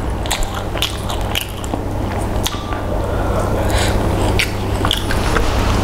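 Close-up eating sounds: wet chewing of fried chicken and rice with many short smacking clicks, and fingers squishing and tearing the food, over a steady low hum.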